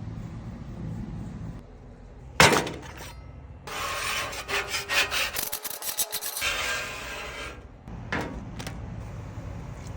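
Rough scraping and scrubbing on a cast iron griddle's surface, working off the rust and old seasoning. It comes as a run of quick strokes from about four to seven and a half seconds in, with a sharp knock shortly before.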